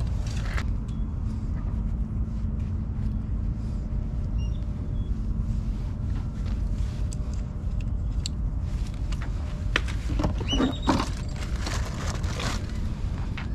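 Wind buffeting the microphone as a steady low rumble, with small clicks and rattles from fishing tackle being handled, and a brief cluster of squeaks about ten seconds in.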